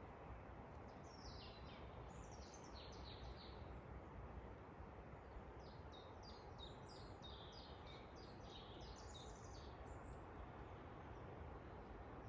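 Forest songbirds singing two bursts of quick, high chirping notes, one about a second in and a longer one from about six to ten seconds in, over a faint, steady, rushing background noise.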